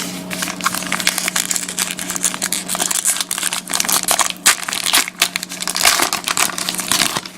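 Trading card pack wrapper being torn open and crinkled by hand, a dense run of irregular crackles that stops near the end.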